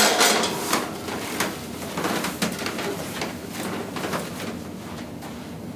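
Chiropractic adjusting table knocking, creaking and rustling as the patient turns over from face down onto her back: a string of sharp clunks, loudest at the start, with scraping of body on the padding between them, settling down near the end.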